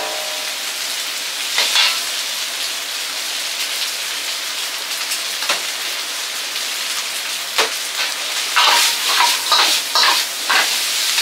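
Food frying and sizzling in hot oil with a steady hiss, broken by sharp knocks of cooking utensils against the pan: a few spaced out at first, then a quick run of them near the end.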